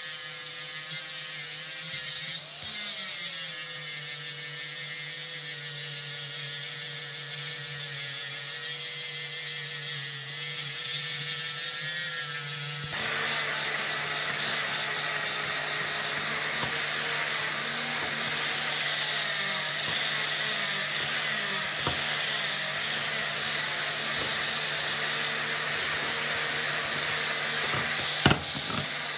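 Angle grinder running steadily with a cutting disc biting into rusty steel. About halfway through, the sound changes abruptly to a small angle grinder with an abrasive disc grinding rust off a vise's threaded steel screw, a rougher, noisier grinding. A single sharp knock near the end.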